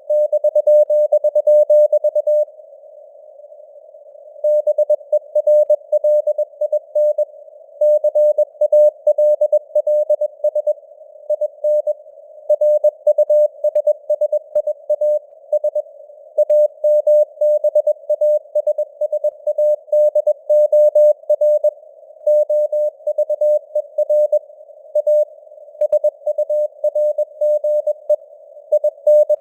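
Morse code (CW) sent at 21 words per minute: a single steady tone keyed on and off in dots and dashes, inside a narrow band of receiver-like hiss, with the signal strength fading up and down (simulated QSB). A pause of about two seconds comes near the start, between words.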